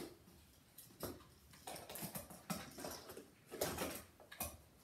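A fingerboard clacking and tapping on a homemade cardboard ramp and the felt table top: a scattered run of light, short knocks, about eight in all.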